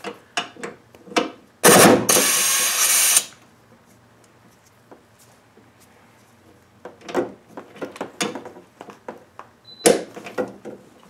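A pneumatic tool on the air hose runs in one loud burst of about a second and a half, about two seconds in, against the tight top engine-mount bolt, which it is not strong enough to break loose. Later come a series of light clicks and knocks as the socket and tool are handled on the bolt.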